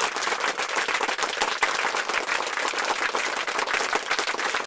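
Applause sound effect: many hands clapping fast and densely at a steady level, cutting off abruptly near the end.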